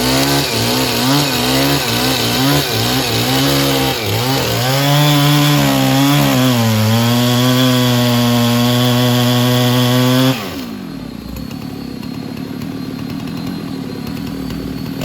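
Chainsaw cutting wood, its engine pitch wavering under the load, then running steady and high; about ten seconds in it drops abruptly to a much quieter, lower sound.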